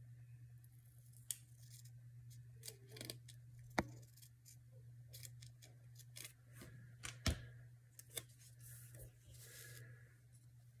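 Small craft scissors snipping through paper stamp stickers in a run of short, irregular snips, two of them louder, about four and seven seconds in. Near the end comes a soft rustle of paper as the sticker is handled.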